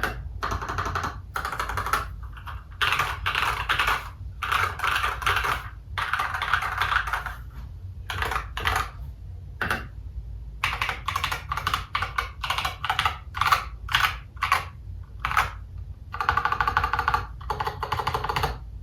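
Typing on an Irok FE87 mechanical keyboard fitted with Aliexpress Holy Panda tactile switches: runs of fast key clacks a second or two long with short pauses between them. A steady low hum runs underneath.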